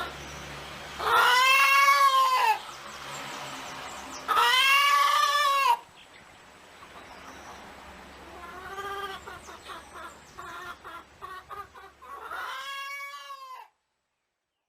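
An animal calling: two loud drawn-out calls that rise and fall in pitch, each about a second and a half long, then two fainter calls of the same kind later on.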